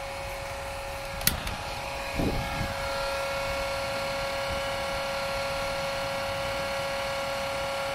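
The gasifier's small electric startup fan whines steadily on one pitch. About a second in, a torch lighter clicks, and about two seconds in its flame catches with a soft rush, then hisses steadily at the fan's outlet to light the gas drawn through the charcoal.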